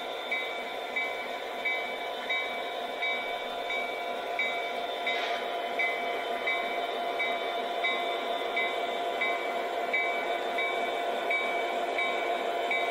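Onboard diesel sound system of a Lionel Legacy SD70ACE O-gauge model locomotive, playing a steady engine drone as the model rolls along. A short ping repeats about every two-thirds of a second.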